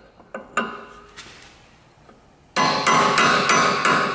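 A few light metallic taps, then about two and a half seconds in a fast run of ringing hammer blows on metal, about four a second, driving an Audi A4 B7's front control arm out of its aluminium steering knuckle.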